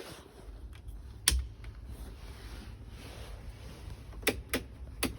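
A few sharp clicks and taps from handling fittings in a truck cab, one about a second in and three close together near the end, over a low steady hum.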